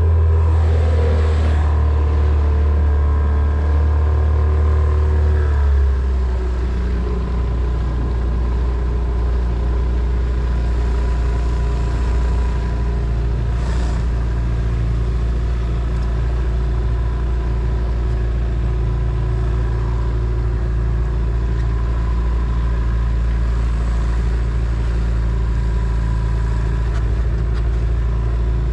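Small boat's outboard motor running steadily, its pitch dropping about six seconds in and then holding at the lower note.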